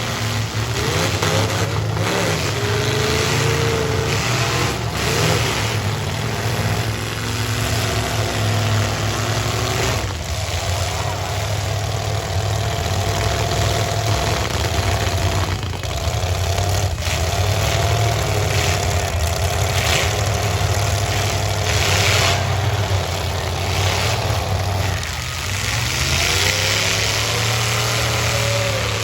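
Several stock V8 demolition derby car engines running together and revving up and down, with several sharp bangs of cars crashing into each other.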